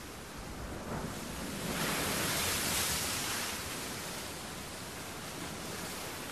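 A steady rushing noise, like surf or wind, that swells once about two to three seconds in and then eases back.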